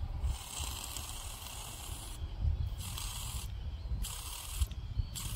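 Air blown by mouth into a mini-bike carburetor's fuel inlet, hissing out past the float needle valve in four bursts with short breaks. This is a test of whether the needle shuts off the flow when the float is pressed up.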